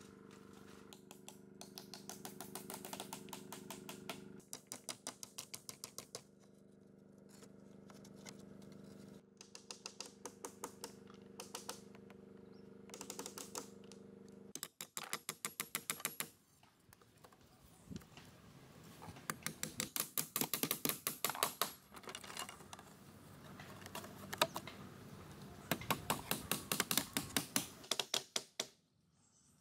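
Rapid runs of sharp taps, several a second, coming in bursts, over a steady low hum that stops about halfway through.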